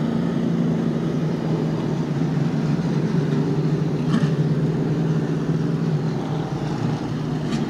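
Pro Late Model stock car V8 engines running at caution pace behind the pace truck: a steady engine drone holding an even pitch as the cars file past the flag stand.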